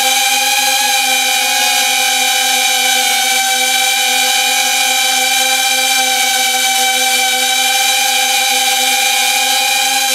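FPV quadcopter's brushless motors and propellers whining steadily, picked up by the onboard camera's built-in microphone, the pitch holding nearly constant.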